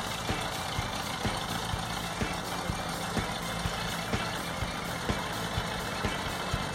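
A vehicle engine idling steadily, with faint irregular ticks.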